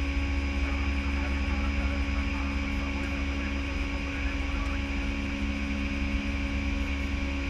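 Steady flight-deck noise of an Airbus A319 in the climb after takeoff: a low rumble of airflow and engines with a few steady hum tones over it.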